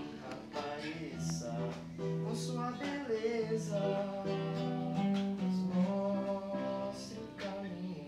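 Two acoustic guitars, one a nylon-string classical guitar, playing a song together, picked and strummed.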